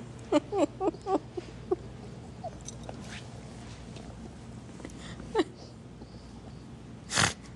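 Stifled laughter: a quick run of short, breathy chuckles in the first two seconds, a couple of lone chuckles later, and a sudden loud burst of breath near the end.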